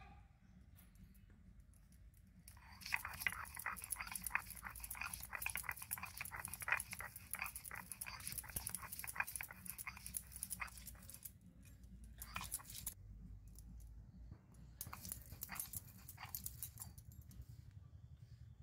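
Stone roller of a sil-batta rubbed rapidly back and forth on the flat grinding stone, a dense gritty rasping of stone on stone that starts about three seconds in and runs to about eleven seconds, followed by two shorter bursts of grinding near the end.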